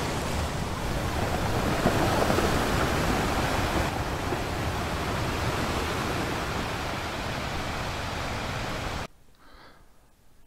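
Steady rush of sea waves on a shore, cutting off abruptly about nine seconds in.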